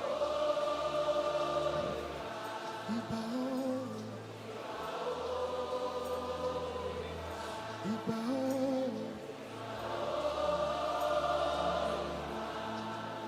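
Congregation singing a slow, repeated worship chant in long, swelling phrases over sustained low instrumental bass notes.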